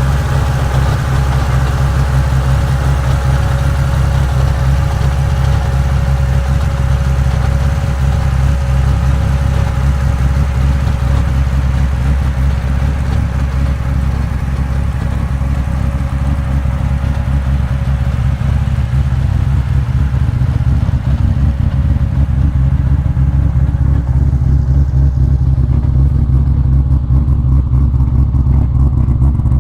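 Drift car's engine idling steadily and loud, already running, with no revs.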